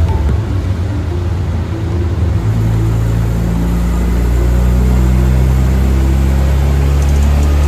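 Car engine running at a steady speed, a deep, even drone that settles and grows a little louder about two and a half seconds in.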